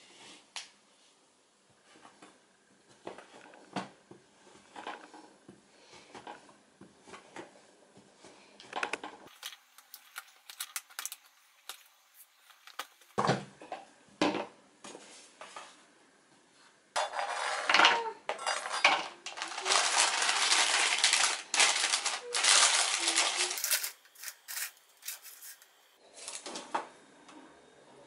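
Chef's knife chopping a bar of dark chocolate on a cutting board: a run of light clicks and taps, then a couple of heavier knocks. Later comes a longer, louder stretch of handling noise.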